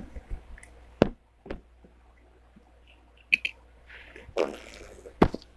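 A few scattered sharp clicks and knocks of small objects being moved about by hand, with a short rustle about four seconds in.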